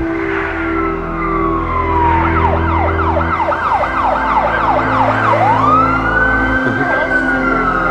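Emergency-vehicle siren over electronic music with pulsing synth chords. The siren falls in one slow wail, switches about two seconds in to a rapid yelp of roughly three sweeps a second, then rises back to a long wail that sinks slowly near the end.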